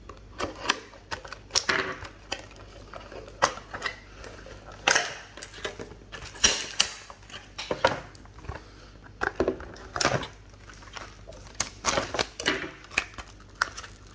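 Hands opening and handling the packaging of a trading-card booster box: irregular crinkling of plastic wrap and foil packs with clicks and taps on cardboard.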